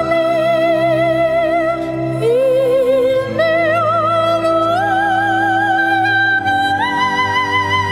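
Background music: a slow solo melody of long held notes with wide vibrato, climbing step by step to higher notes, over low sustained accompaniment.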